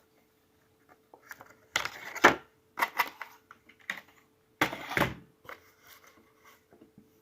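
A toy's packaging being opened by hand: scattered clicks and short rustling bursts, the loudest about two, three and five seconds in.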